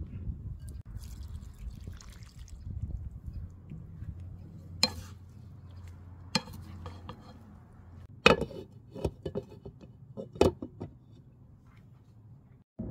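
Wooden spatula stirring chopped parsley and oyster mushrooms in a non-stick frying pan: soft rustling, then a few sharp knocks and clinks of utensil and glass lid against the pan in the second half.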